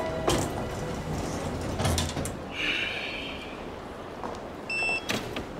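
Room ambience of an office lobby from the drama's own soundtrack: a few scattered soft knocks, a brief rustle about two and a half seconds in, and a short electronic beep a little before the end.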